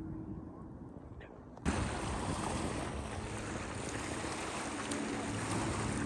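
Wind buffeting the microphone over open water, with a jet ski's engine humming faintly across the river; the sound jumps abruptly to a loud wind-and-water hiss about a second and a half in. Before that there is only a low wind rumble and a short chirp.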